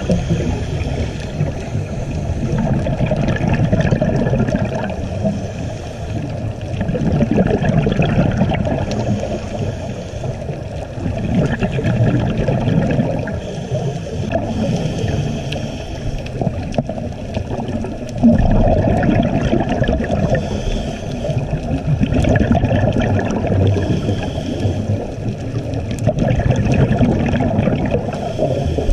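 Scuba divers' exhaled air bubbling out of their regulators, heard underwater through a GoPro housing: a low gurgling rush that swells and eases every three or four seconds with each breath, one swell coming in suddenly about two-thirds of the way through.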